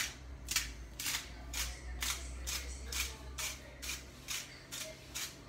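Hand-twisted grinder cracking Himalayan pink salt crystals: a steady series of short crunchy rasps, about two a second, one with each twist of the grinder.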